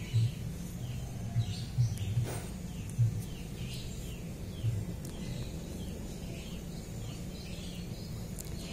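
Small birds chirping repeatedly in short, quick notes, over a steady low hum.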